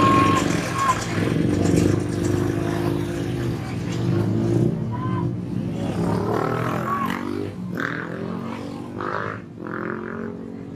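Engines of a bus and motorcycles running as they pass close by on the street, with some rising and falling pitch, plus scattered voices.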